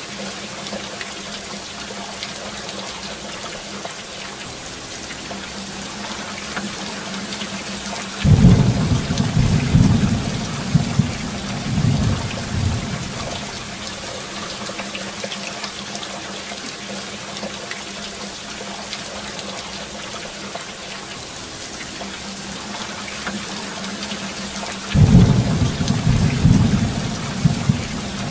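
Steady heavy rain, with two rolls of thunder. The first breaks in suddenly about a third of the way through and rumbles for several seconds. The second starts near the end.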